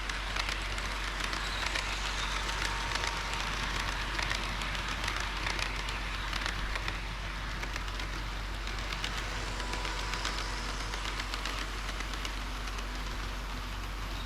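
HO-scale model train running on its track: a steady rolling hiss with many small, irregular clicks from the wheels.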